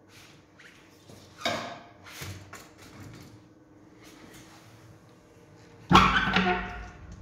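Pellet boiler's steel firebox door being opened: a loud metal clunk as the latch gives about six seconds in, followed by a short creaking squeal from the door. A smaller metallic clatter comes about a second and a half in, and a low hum from the running burner runs underneath.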